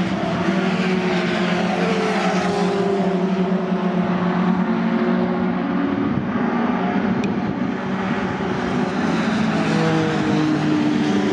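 Several racing pickup trucks' engines running hard at race speed, their steady notes overlapping and shifting in pitch as the trucks pass.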